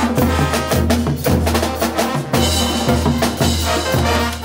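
Live Bolivian street brass band playing a Latin dance tune, with drums, timbales and cymbals prominent in a driving rhythm over a low bass line and brass.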